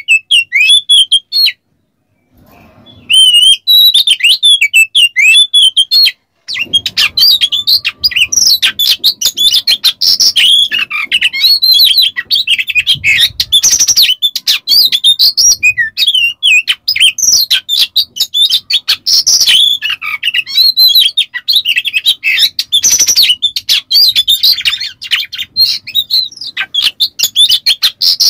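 Oriental magpie-robin (kacer) in full, frenzied song: fast, varied whistles mixed with rapid harsh rasping notes. The song breaks off briefly about 2 s in and again about 6 s in, then runs on densely without a break.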